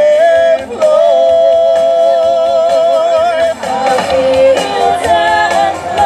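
A vocal group singing long held notes in harmony, with vibrato; the longest note is held from about a second in to about three and a half seconds in.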